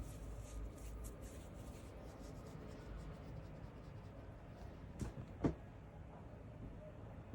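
Quiet room with faint scratchy rustling and two short, sharp sounds about five seconds in.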